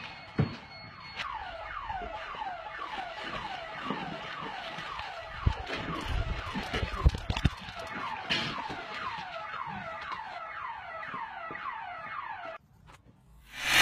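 Electronic alarm sounding a rapid, regular series of falling chirps, about three a second, which cuts off suddenly near the end. A few low thumps come in the middle.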